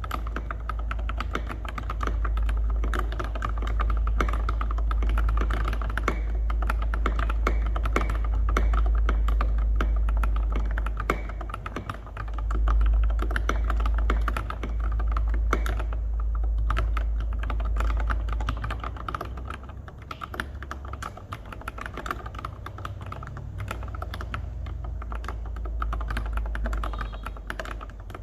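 Continuous fast typing on a mechanical keyboard with lubed Cherry MX Black Retool linear switches and tall SA-profile keycaps: a dense stream of keystroke clacks. A steady low rumble runs underneath and eases off past the middle.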